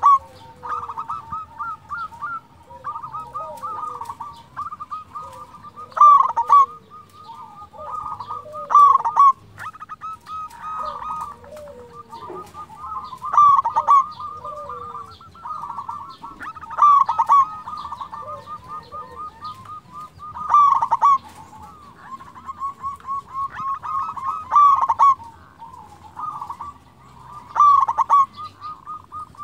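Zebra dove (perkutut) song: a loud, quick cooing phrase comes every few seconds, with softer rapid coo notes running between the phrases.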